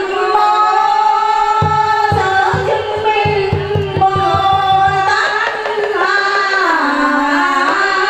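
A woman singing a ritual offering chant into a microphone, long held notes sliding between pitches, with a quick percussion beat from about a second and a half in until about five seconds in.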